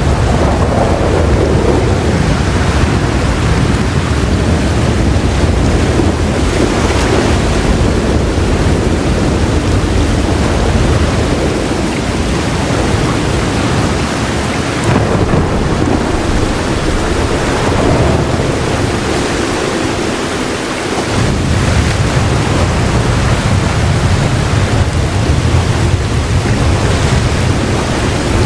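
Heavy rain falling steadily with a low rolling thunder rumble underneath; the rumble drops away for a moment about two-thirds of the way through, then rolls back in.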